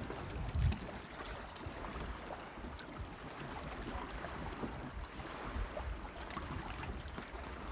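Outdoor waterside ambience: small waves lapping against a moored sailboat's hull, with wind rumbling on the microphone in a gust just after the start.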